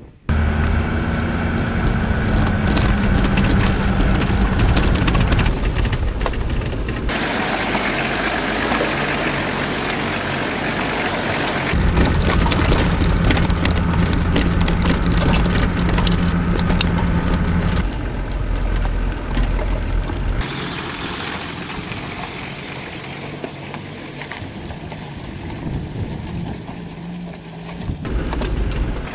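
4x4 off-road vehicle's engine running as it drives a rough mountain track, in several short clips cut one after another. Some clips carry a low steady engine hum; others are mostly a rushing noise.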